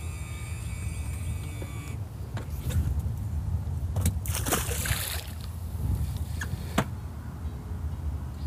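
Water splashing once, about four seconds in, over a steady low wind rumble on the microphone, with a few sharp knocks. A steady high whine cuts off about two seconds in.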